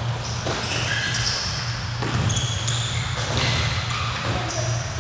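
Basketball game sounds in an indoor gym: sneakers squeaking on the court floor again and again and a basketball bouncing a few times, over a steady low hum.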